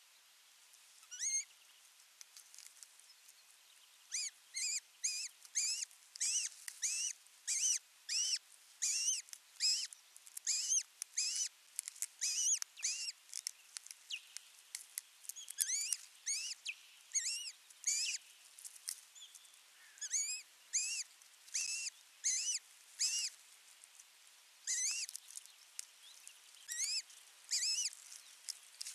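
Osprey calling: a long series of sharp, high whistled chirps, about two a second, each note curving up then down. A single call comes about a second in, and the steady series begins about four seconds in, with a short break near the end.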